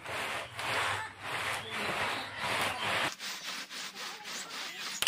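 Hand-operated peanut sheller being worked: its lever is swept back and forth, rubbing the pods against the wire mesh so they crack and rasp, about two to three strokes a second. The strokes get quieter in the last couple of seconds.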